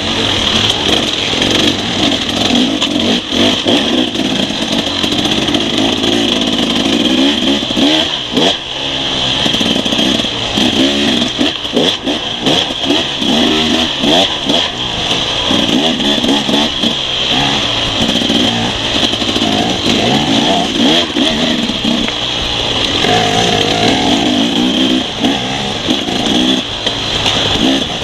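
Enduro dirt bike engine on a rough trail, its pitch rising and falling constantly as the throttle opens and closes, with frequent knocks and rattles from the bike over bumpy ground.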